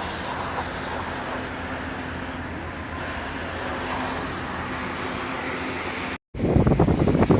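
Steady wash of distant city traffic. About six seconds in the sound cuts out for an instant, then gusts of wind buffet the microphone.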